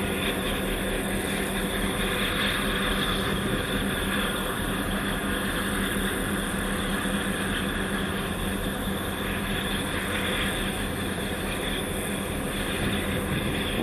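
A boat's engine running steadily, a constant low drone with a rush of water and wind over it.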